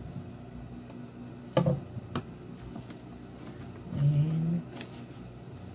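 A woman's voice making a brief low hum or murmur about four seconds in, and a short vocal sound earlier. A few faint light taps come from work on fabric and a wooden ruler on a table.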